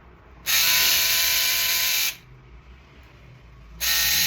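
Electric foil shaver switched on and running with a loud, steady buzz for about a second and a half, then switched off; it is switched on again near the end.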